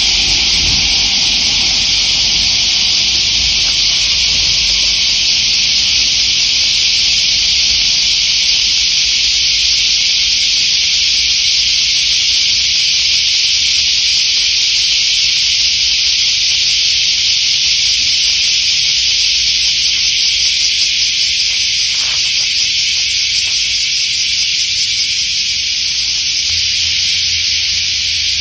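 A chorus of cicadas making an unbroken, loud, high-pitched sizzling hiss.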